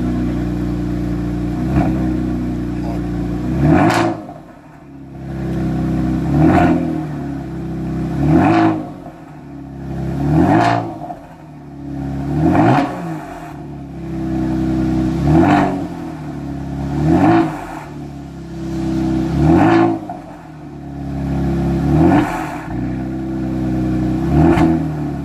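Kia Stinger's 3.3-litre twin-turbo V6, breathing through downpipes and a Borla cat-back exhaust, idles steadily. About four seconds in it starts being blipped, about ten revs roughly every two seconds. Each climbs in pitch and drops back toward idle, with a sharp crack at the top.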